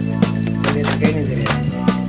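Background music with a steady beat over held bass notes.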